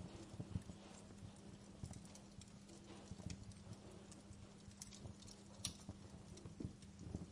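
Wood fire crackling faintly in a fireplace: irregular sharp snaps and pops with soft low knocks, over a steady low hum.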